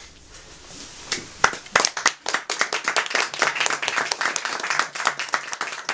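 Audience applause: a few scattered claps about a second in, quickly building into steady clapping by many hands.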